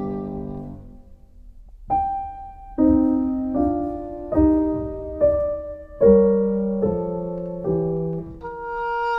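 Background piano music: a chord fades into a brief lull, then slow chords and single notes are struck about once a second, each starting sharply and dying away.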